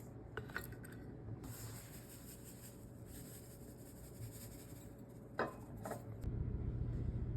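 Kitchenware being handled: a couple of light clinks, a stretch of rubbing or scraping, then two sharper clinks about five and a half seconds in. A low steady hum starts near the end.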